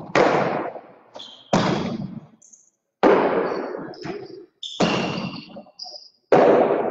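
Hard jai alai pelotas smacking against the fronton walls: five sharp cracks about a second and a half apart, each ringing on in the court's echo.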